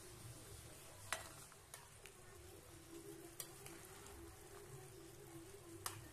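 Faint simmering of a young-jackfruit curry broth reducing in a pan, with a metal slotted spatula stirring through it and a few light clicks as it touches the pan.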